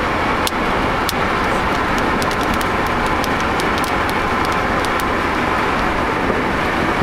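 Steady road and tyre noise of a car driving on the highway, heard from inside the cabin, with faint scattered ticks throughout.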